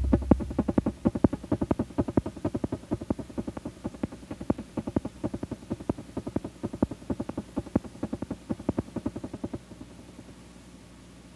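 Electronic synthesizer music winding down: a rapid train of repeated pulses that grows quieter and stops about ten seconds in, leaving a faint low hum and hiss.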